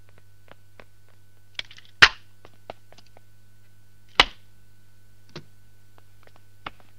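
A few short, sharp clicks and knocks, the two loudest about two seconds and four seconds in, over a low steady hum.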